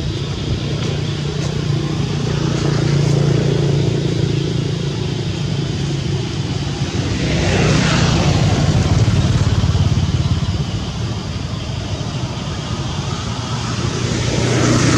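Motor vehicles running on a nearby road: a steady engine hum, with one vehicle passing close about halfway through, its sound sweeping down in pitch as it goes by, and another coming up near the end.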